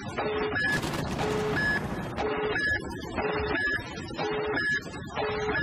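Electronic intro track: short low and high beeps alternating about twice a second, each over a noisy, clattering hit, in a steady mechanical-sounding loop.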